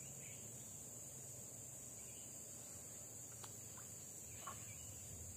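Steady high-pitched drone of forest insects, with a few faint ticks and a soft plop on the water about four and a half seconds in as the lure is worked at the surface.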